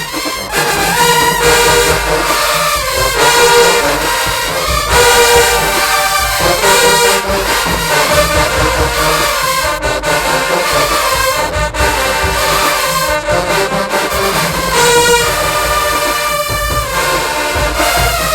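A college marching band plays loudly and without a break, its brass section, with trombones and trumpets, carrying the tune.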